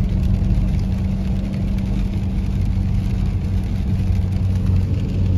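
A car's engine and road noise heard inside its cabin while driving: a steady low hum.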